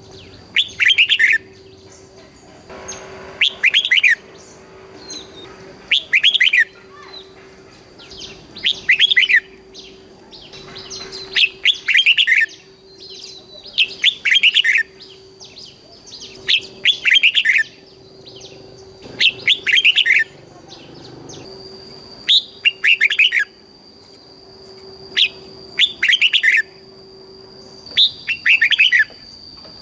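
Red-whiskered bulbul singing, a short bright phrase about every two seconds, with a faint steady hum underneath.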